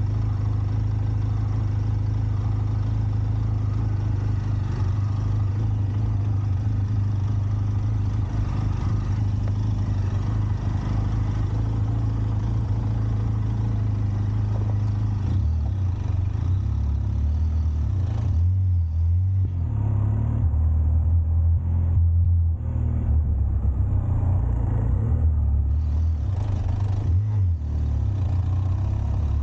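Benelli TRK 502X's parallel-twin engine running while the motorcycle is ridden, heard from on board. The engine note holds steady for about the first half, then drops lower and rises and falls unevenly as the revs change.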